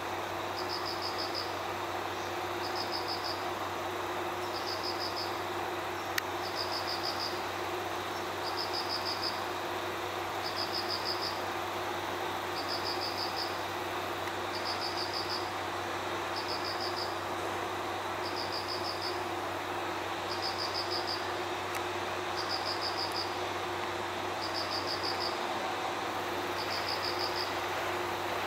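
An insect, cricket-like, chirping in short high trills of several quick pulses, repeating evenly about every two seconds over a steady background hum.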